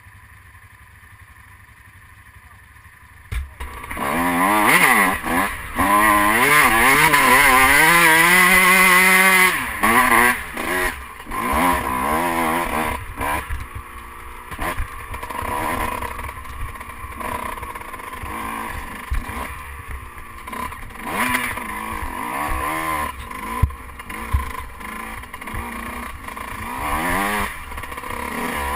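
Motocross dirt bike engine, quiet for about the first three seconds, then revving up hard as the bike pulls away and running at high revs for several seconds. After that the engine note rises and falls unevenly with the throttle as the bike rides over rough gravel.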